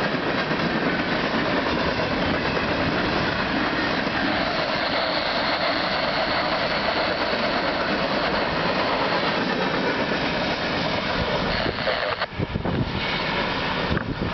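Empty steel coal hopper cars of a unit freight train rolling past at speed, their wheels running on the rails in a steady, dense noise. About twelve seconds in the noise breaks up and dips as the train moves on.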